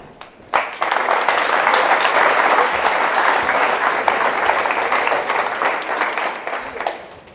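Audience applauding, breaking out about half a second in, holding steady, then dying away near the end.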